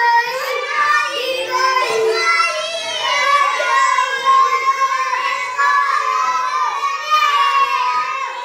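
A class of young children chanting aloud together in a sing-song, many high voices overlapping without a break: rote reading of letters from their books.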